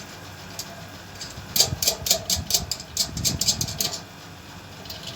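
A quick run of clicks and knocks, about five a second, lasting a little over two seconds from about one and a half seconds in. It comes from the hardware and tools being worked while a satellite dish is fitted with its screws.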